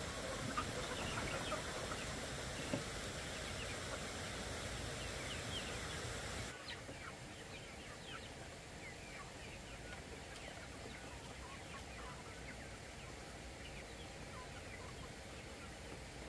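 A flock of young chickens calling around the listener, many short, high peeps and clucks scattered throughout. The background hiss drops about six and a half seconds in, and there are a couple of brief knocks in the first three seconds.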